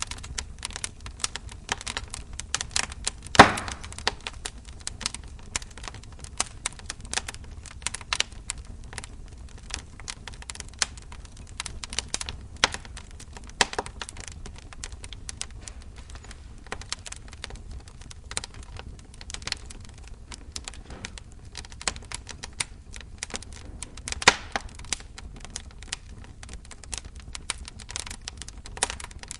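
Wood fire burning with wet wood: irregular crackling and sharp pops over a low rumble, with a few louder pops, one about three and a half seconds in and another near twenty-four seconds.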